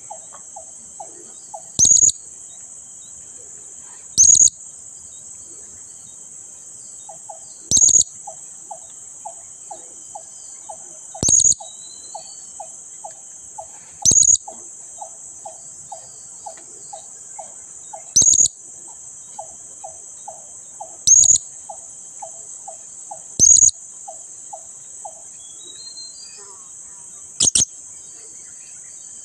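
Blue-crowned hanging parrot (serindit) giving single sharp, shrill calls about every three seconds, nine in all. Under them runs a steady high insect buzz. Through the middle stretch there is a quick, low pulsing call from another animal, about four pulses a second.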